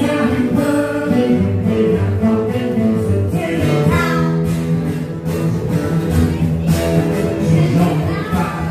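Live music: a woman singing into a microphone over an acoustic guitar, played through the stage speakers.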